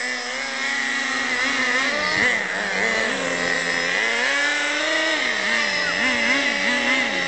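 Small glow-fuel (nitro) engine of an RC buggy running hard, its high buzzing pitch rising and falling repeatedly as the throttle is blipped and eased, with a quick run of up-and-down revs near the end.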